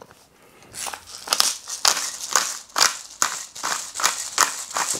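Hand-turned salt and pepper mills grinding over a bowl of flour: a dry, crunchy crackle with each twist, about two or three twists a second, starting about a second in.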